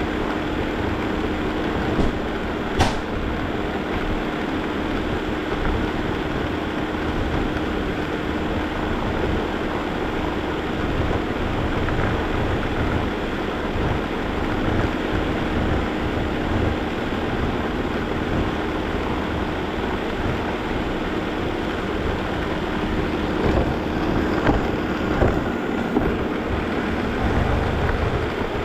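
Shark robot vacuum running steadily with a constant motor hum, heard up close from a camera mounted on top of it. A few sharp knocks come about two and three seconds in, and a few more near the end.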